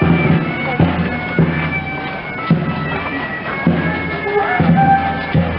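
Bagpipes playing a tune over steady drones.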